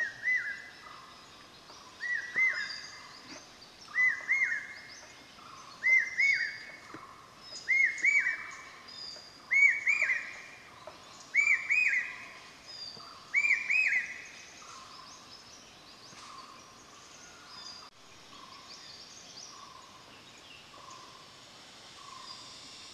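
A bird calling loudly: a short phrase of a few rising notes, repeated about every two seconds, climbing in pitch and growing louder over eight phrases before it breaks off about fourteen seconds in. Fainter high chirps from other birds and a softer, lower note repeating about once a second carry on throughout.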